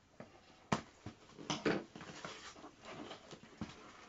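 Polystyrene packing being handled and pulled from a cardboard box: a sharp knock about a second in, then rubbing and crackling with scattered small clicks.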